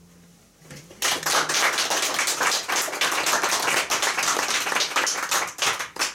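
The last chord of two classical guitars dies away, then a small audience applauds for about five seconds, the clapping starting about a second in and thinning out near the end.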